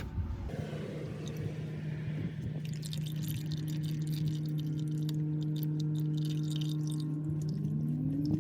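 Engine oil pouring out of the Infiniti G35's freshly unscrewed oil filter into a drain pan: a steady stream with a steady tone, and a tone rising in pitch near the end.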